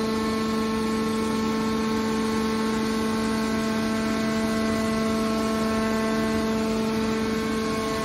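Hydraulic power unit of an industrial scrap metal baler giving a steady whine, one unchanging pitch with overtones, while its hydraulic cylinder swings the baling chamber's lid shut.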